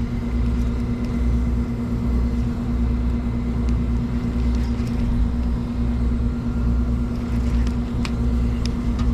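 A motor running steadily with a constant low hum and rumble that does not change in pitch or level.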